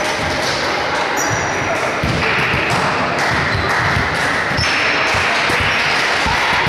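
Crowd noise and shouting echoing in a large sports hall, with repeated dull thuds and a brief high squeak a little past the middle.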